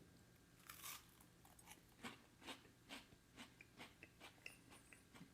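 Faint crunching bites and chewing of a crisp air-fried waffle, a series of short irregular crunches about two a second.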